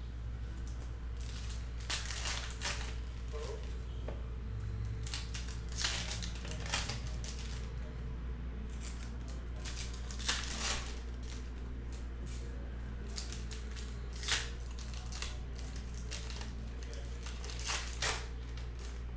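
Topps Chrome card pack handled and opened, then the stiff chromium cards slid and flicked against each other as they are flipped through one by one: irregular short crinkles and swishes, a few sharper than the rest. A steady low hum runs underneath.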